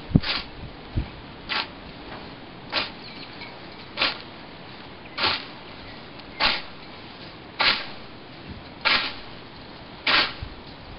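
Hand scythe swishing through grass and flowering dandelions in even strokes, about one every 1.2 seconds, nine in all. A few low thumps come in the first second.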